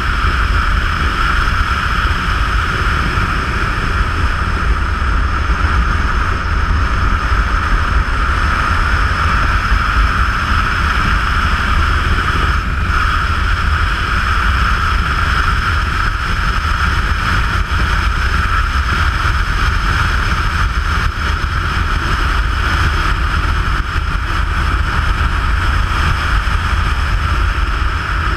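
Motorcycle cruising at a steady road speed: a steady engine drone mixed with loud wind rush on a bike-mounted action camera.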